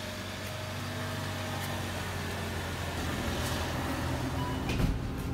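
Steady low machinery hum, like a compressor or idling motor, with one short knock near the end.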